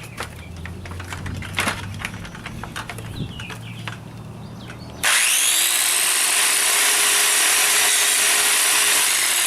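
A few light knocks and clicks, then about five seconds in a circular saw cuts into a red oak board, suddenly loud and steady to the end.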